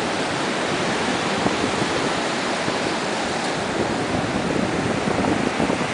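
Steady rushing noise of surf and wind on a beach.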